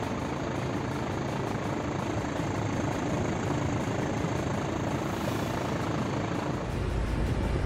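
Helicopter rotor and engine noise heard from aboard the aircraft: a dense steady roar with a rapid, even chop. The low rumble grows louder near the end.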